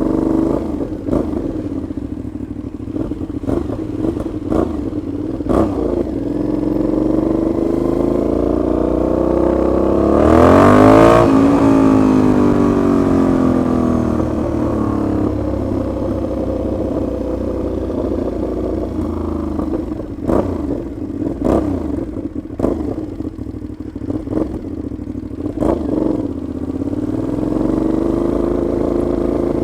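Aprilia Shiver 750 V-twin motorcycle running very loud, as if it had no silencer. The revs climb to a peak about eleven seconds in, fall away, and rise again near the end. The rider traces the noise to play between the silencer and the catalytic converter that retightening the clamp did not cure.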